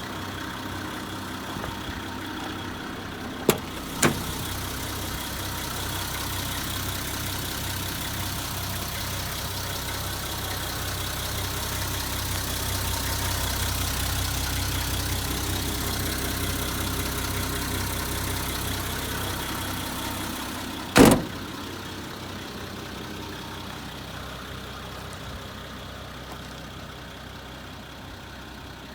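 Nissan Civilian bus's TD42 inline-six diesel engine idling steadily. Two sharp clicks come a few seconds in, and a loud knock about two-thirds of the way through, after which the engine sounds a little quieter.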